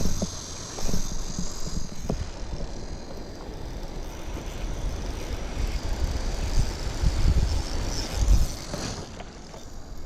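Wind buffeting the microphone in an irregular low rumble, with a steady high buzz of cicadas that is strong for the first two seconds and then fades, and a few faint knocks.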